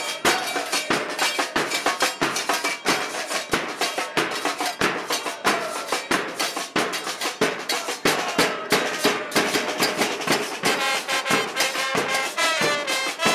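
Street fan band's snare drums and bass drum beating a fast, steady rhythm.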